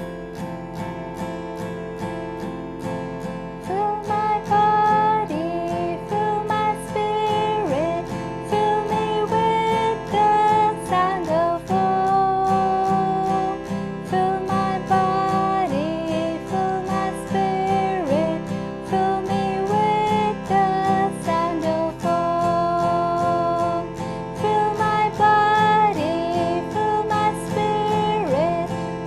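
Acoustic guitar strummed in a steady rhythm, alternating between F major and C major chords, with a voice singing a slow chant melody over it from about four seconds in.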